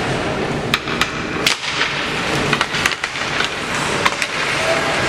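Ice hockey game in a rink, heard from the stands: a steady din of skates on ice and the arena, broken by a handful of sharp clacks of sticks and puck.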